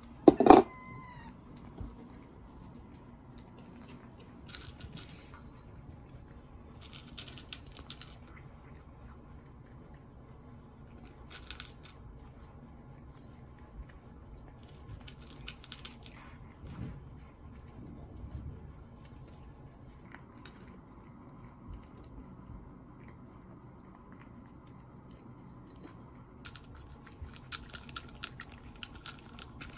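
Cats crunching dry kibble from ceramic bowls: scattered runs of small crisp crunches and clicks, busiest near the end. About half a second in, a short loud meow.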